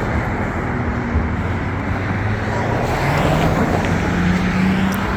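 Road traffic noise from cars at a busy intersection, with a low engine hum that rises a little in pitch about three seconds in.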